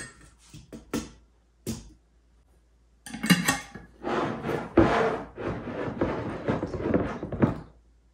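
A few clinks of metal tongs against a large glass jar of kombucha. Then a plastic lid is screwed onto the jar, its threads scraping and rattling for several seconds with small knocks of glass on the countertop.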